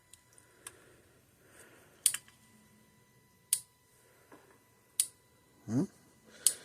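Parmak Magnum 12 electric fence charger firing its output pulses, a sharp click four times, about every second and a half: the charger is powered up and working.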